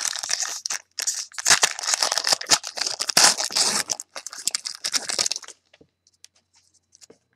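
Trading-card pack wrapper being torn open and crinkled by hand as the cards are pulled out. The crinkling stops about five and a half seconds in, leaving only a few faint ticks.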